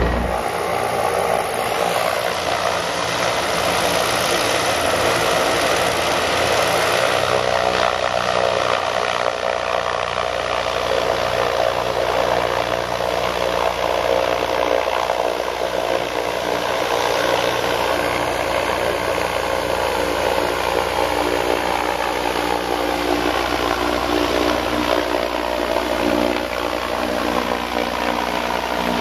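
Propeller engines of a Zeppelin NT airship running steadily as it lifts off and passes low overhead. The drone's pitch slowly shifts in the second half.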